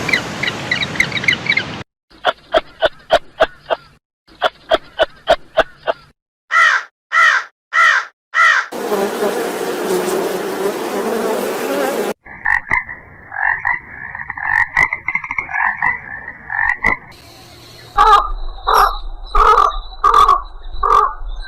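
A run of frog calls cut together from separate clips: quick pulsed rattling croaks, then four loud croaks, a few seconds of hiss, a long steady trill, and repeated short calls near the end.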